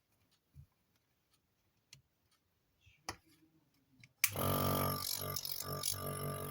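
A few faint clicks, then about four seconds in the CN-233 compressor nebulizer's compressor switches on suddenly and runs steadily with a loud hum. It is running normally again after an intermittent bad contact had stopped it switching on.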